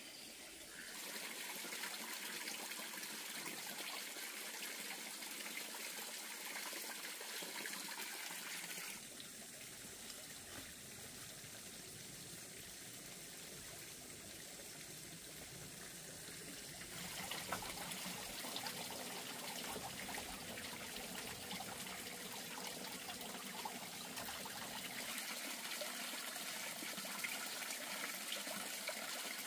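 Steady trickling of running water, like a small stream, as an even hiss; it drops in level about a third of the way through and comes back up past the middle. Faint rustles and snaps of leaves as plants are pulled up sit under it in the second half.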